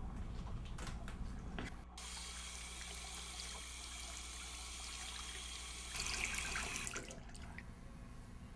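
Bathroom sink tap running: a few light clicks, then water comes on about two seconds in and runs steadily. It is louder for about a second near the end, then stops.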